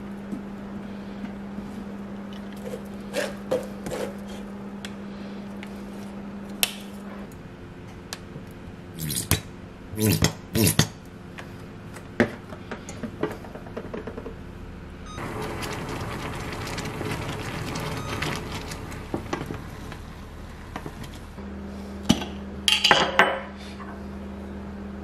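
Kitchen utensils working thick sweet-corn purée in a stainless steel pot and mesh strainer: a wooden spatula scraping and stirring, with clinks and knocks against the metal, loudest about ten seconds in and again near the end. A low steady hum sits underneath at the start and end.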